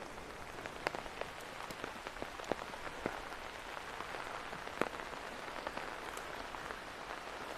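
Steady light rain, with scattered sharp drops striking close by.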